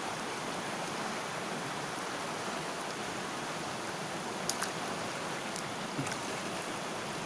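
Shallow river water running over and around rocks, a steady rush. Two faint short clicks sound over it, about four and a half and six seconds in.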